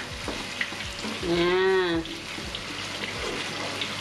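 Chilli sauce with tofu sizzling and bubbling in a nonstick wok while a wooden spatula stirs it, knocking lightly against the pan in repeated strokes. A brief drawn-out vocal sound rises and falls about a second in.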